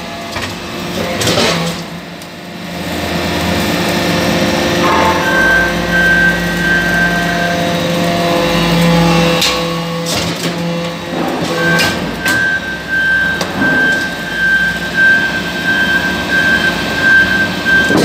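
Y81-4000 hydraulic metal-chip briquetting press running: a steady hum from the hydraulic power unit, with a high whine that comes in about five seconds in and again from about twelve seconds. There are a few sharp knocks between about ten and twelve seconds in.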